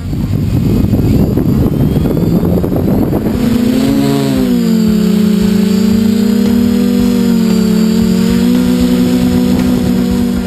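Locust MF450 quadcopter's four RCTimer brushless motors and 10x5 propellers taking off, heard from the camera on its frame. For about three seconds there is a loud rushing rumble of prop wash and wind. Then a steady multi-toned hum sets in, its pitch wavering slightly as it climbs and holds.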